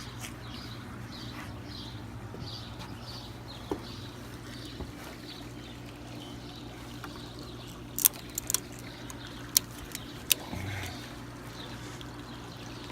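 Ratchet strap being cranked tight under load: a few sharp metal clicks of the ratchet about eight to ten seconds in, over a steady low hum.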